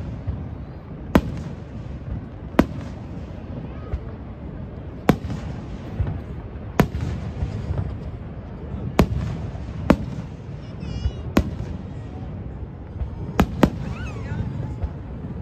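Aerial fireworks shells bursting overhead: about nine sharp bangs, unevenly spaced a second or two apart, with two in quick succession near the end. Crowd voices run in the background.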